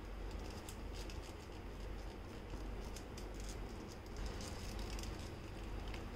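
Silicone spatula stirring thickened milk and mango pulp in a non-stick pan: faint scraping with scattered soft clicks against the pan, over a low steady hum.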